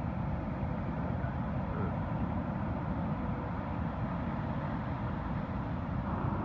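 Steady low rumble of ocean surf.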